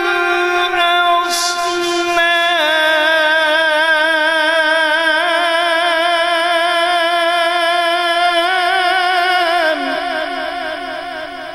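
A man's voice in melodic Quran recitation through a sound system, holding long wavering notes. Near the end it moves to a lower, quivering note and fades out.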